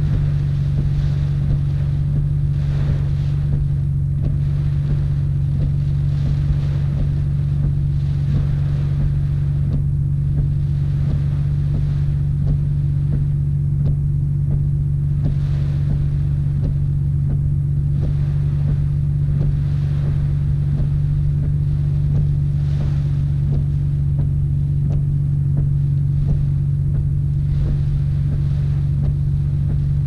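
Nissan R32 Skyline GT-R's twin-turbo straight-six running at low speed with a steady low drone heard inside the cabin. The windscreen wipers sweep every second or two, and heavy rain beats on the glass.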